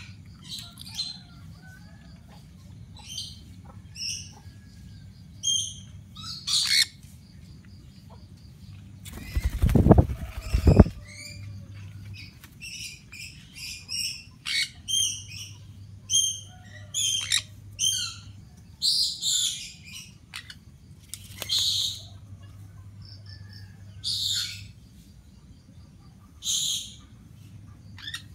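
Conures calling with short, high chirps and squawks again and again, in irregular bursts. About ten seconds in comes a loud low rumble of about two seconds.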